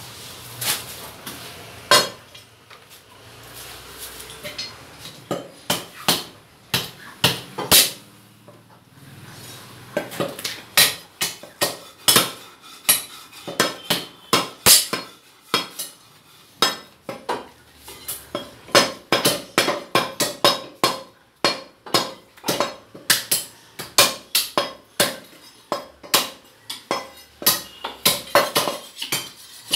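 Butcher's cleaver chopping goat trotters and mutton on a wooden log chopping block. The chops are sharp and irregular: a handful in the first several seconds, then quick strokes, a few a second, from about ten seconds in.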